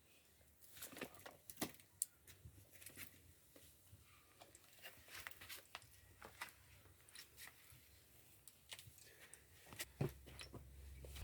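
Faint eating sounds: irregular small clicks, smacks and taps, with a sharper knock about ten seconds in.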